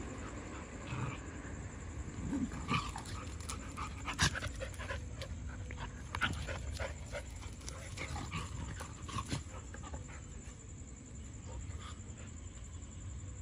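Dogs panting, with a few short clicks and knocks scattered through, over a low steady rumble.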